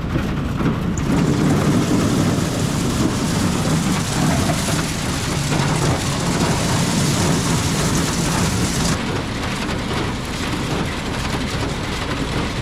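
Corn conveyor running with a tractor engine under it and a dense, rain-like rattle of ear corn going up the conveyor and into the crib. The high rattle thins out about nine seconds in.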